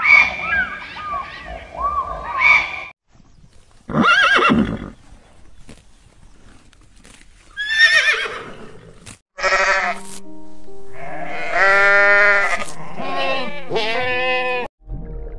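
A string of animal calls over background music. There is a single call about four seconds in, then a horse whinnying about eight seconds in. Sheep bleat repeatedly, several wavering bleats, from about ten seconds until just before the end.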